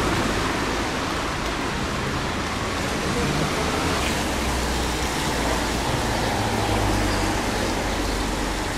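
Steady hiss of street traffic on a wet road, with a low rumble underneath.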